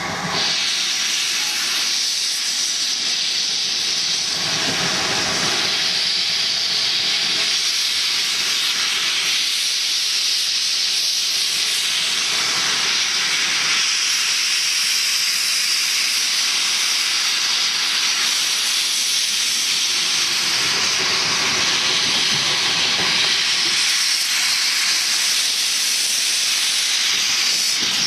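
GWR King class 4-6-0 No. 6024 'King Edward I' hissing loudly, steam blasting from its open cylinder drain cocks as it moves slowly; the hiss is steady and swells a little about every two and a half seconds.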